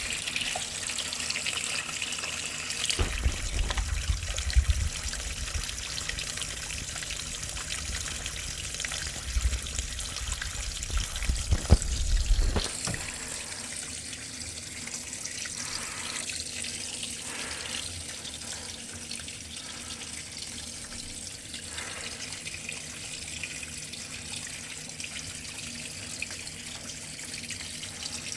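Water running steadily, like a tap or a drain pipe carrying flow. Low rumbling knocks come twice, from about 3 to 5 seconds and from 9 to 12 seconds in.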